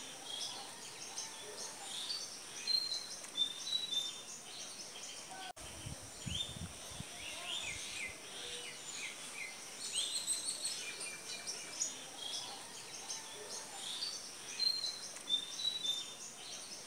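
Many small birds chirping and twittering together, a dense chorus of short high calls with no single song standing out. The sound drops out for an instant about five seconds in, followed by a few low bumps.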